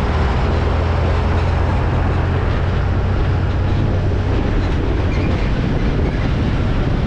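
Container semi-truck passing close by: its diesel engine's low drone over dense tyre and road noise. The drone is strongest for the first two seconds or so, then eases as the trailer rolls past and the truck pulls away.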